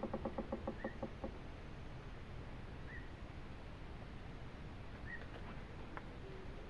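Forest animal calls: a rapid pulsed, low-pitched trill that fades out within the first second, then a short high chirp repeating about every two seconds. A few light clicks come about five to six seconds in, over a steady low background hiss.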